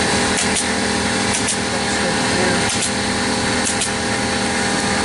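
Pneumatic air stapler driving staples to fasten a leather seat cover to a console lid: four shots about a second apart, each a quick double snap, over a steady motor hum.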